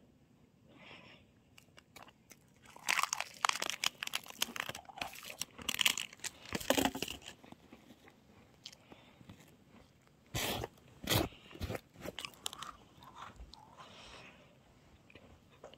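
Close-up eating sounds of a crunchy snack: a run of crisp crunching bites and chewing, then two sharp bites near the middle, followed by quieter chewing.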